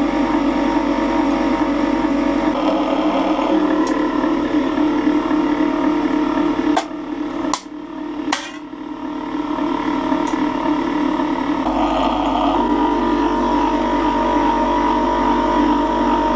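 Homemade electric slip-roll machine running steadily, its gear motor and rollers straightening a thin stainless steel sheet. The running dips briefly about seven to eight seconds in, with a few sharp clanks as the sheet is handled.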